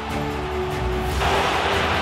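Background music with steady sustained notes. A little over a second in, a louder, hissy layer cuts in over it and stays.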